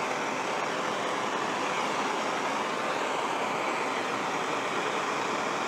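Gas torch flame burning with a steady hiss, heating an aluminium outboard skeg for a brazing-rod repair.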